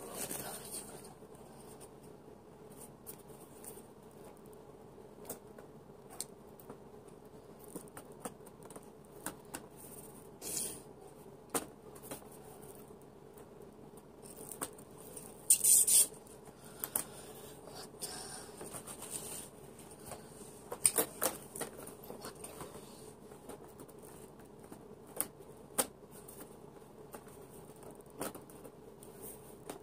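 Clear acrylic hamster-cage panels being handled and fitted together: scattered light clicks, taps and scrapes of hard plastic on plastic, with a louder short scraping rush about halfway through. A faint steady hum lies underneath.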